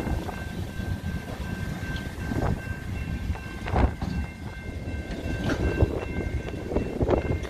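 Freight train cars, tank cars among them, rolling through a road grade crossing: a steady rumble of wheels on rail, broken by several sharp clunks as the wheels pass over the crossing rails. A few thin, steady high ringing tones run underneath.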